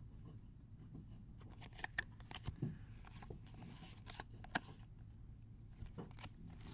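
A stack of Leaf Draft football trading cards being slid and flicked through by hand: faint scattered clicks and snaps of card against card, with a few sharper snaps around two and four and a half seconds in.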